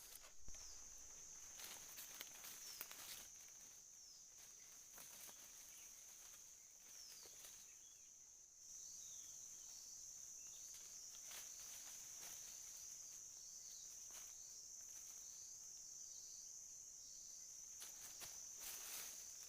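Faint outdoor ambience of insects, with a steady high-pitched drone that gets louder about halfway through. Short falling chirps repeat over it, more often in the second half, along with a few faint clicks.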